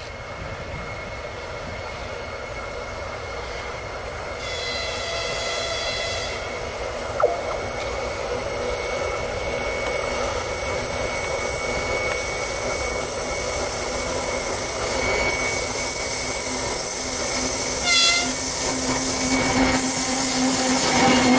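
A 2TE116 twin-section diesel locomotive, with its 16-cylinder diesel engines working, hauls a train of tank cars towards and past the listener, its rumble and wheel noise growing steadily louder. A horn sounds about four and a half seconds in for under two seconds, and a short toot follows near the end.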